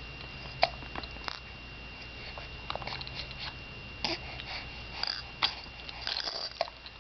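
A baby mouthing and chewing a toy: scattered small wet smacks and clicks, irregular and brief. A faint steady high whine runs underneath.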